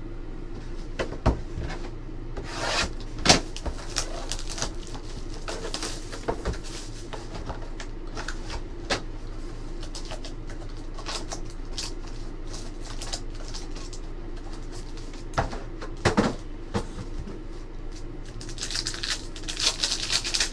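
Trading card packs and boxes handled on a table: scattered knocks and taps, a few louder thumps, and rustling. Near the end comes a longer stretch of crinkling from a foil pack wrapper being opened.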